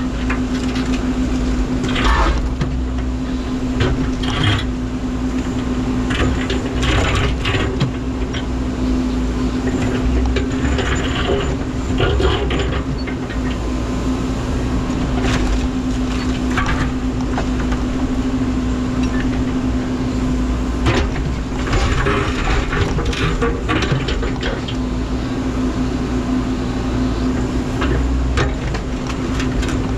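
Menzi Muck spider excavator's diesel engine running steadily under load, with scattered knocks and scrapes of rock being handled by the bucket.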